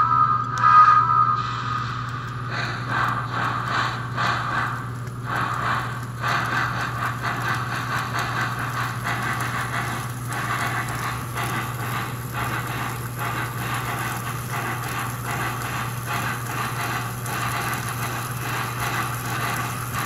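Electronic chuff sound from a speaker added to an American Flyer toy steam locomotive, triggered by a reed switch to give four chuffs per wheel revolution, running as the loco's wheels spin on a test stand. The chuffs start about two and a half seconds in, after a brief tone, over a steady low hum.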